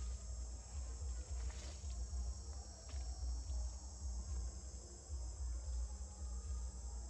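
Steady, high-pitched chorus of insects, crickets or cicadas, shrilling without a break over a constant low rumble.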